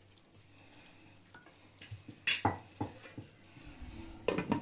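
A ladle stirring and knocking against a kadhai of gravy, with a few sharp knocks about two seconds in, then a metal lid clattering onto the pan near the end.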